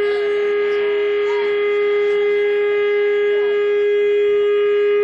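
A single steady droning note on amplified electric guitar, held with its overtones without fading.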